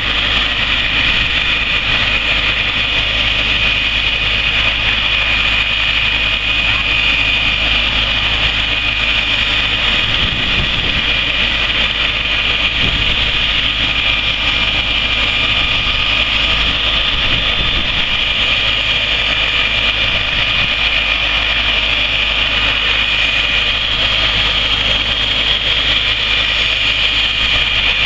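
MBB Bo 105 air ambulance helicopter running on the ground at idle: its twin turbine engines give a steady high whine over a constant rush of engine and rotor noise.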